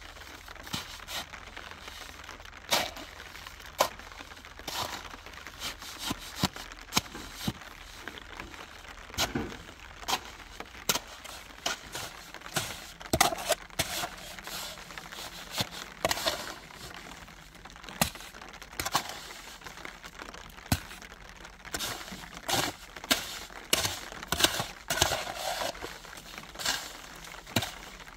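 Irregular crinkling and crackling with many scattered sharp clicks and knocks, denser in places.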